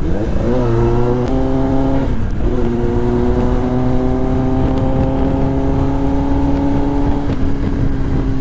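Kawasaki ZX-10R's inline-four engine pulling the bike up to speed, its pitch dipping and climbing again near the start and about two seconds in as it shifts up, then holding a steady pitch while the bike cruises.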